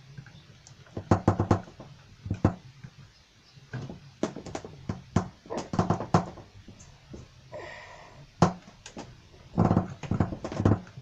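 Irregular clicks and knocks of a mains smoke alarm being handled, twisted off its ceiling mounting base and the other alarm fitted in its place, some knocks coming in quick clusters.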